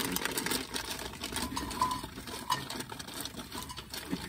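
Kitchen knife slicing raw chicken on a wooden cutting board, the blade tapping the board in a quick, irregular run of light taps.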